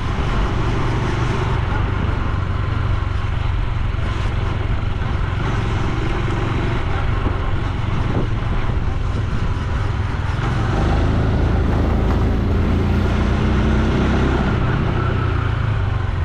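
Honda Super Cub C125's 125 cc single-cylinder four-stroke engine running while the bike is ridden, with steady wind noise on the microphone. The riding noise gets a little louder about ten seconds in.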